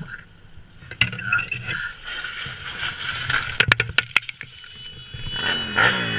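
Dry brush and dead leaves cracking and crunching in a few sharp snaps, about a second in and again in a quick cluster around four seconds. Near the end a motorcycle passes on the road, its engine pitch falling as it goes by.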